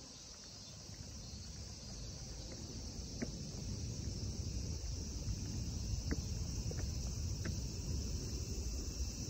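Steady high insect drone from a summer cicada chorus in the trees, with a few sharp footfalls on stone steps and a low rumble underneath.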